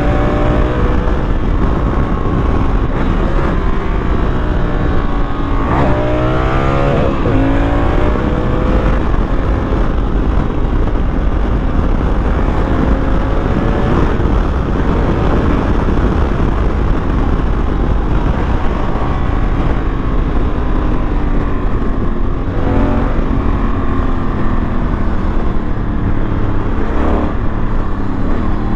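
Honda Africa Twin motorcycle under way, its engine pitch climbing and dropping several times as it accelerates through the gears and eases off, over a constant heavy rush of wind and road noise.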